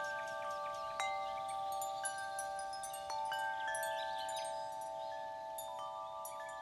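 Chime-like ringing tones, struck one after another at uneven moments and left to ring over each other, with light high tinkles above, slowly fading toward the end.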